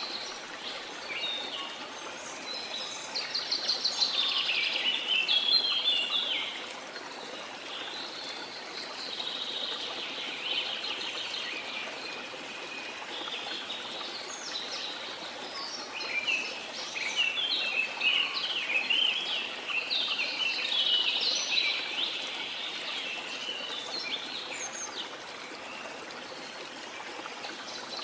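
Several birds singing and chirping in quick, repeated phrases, with a burst of song a few seconds in and a longer one past the middle, over the steady rush of a waterfall.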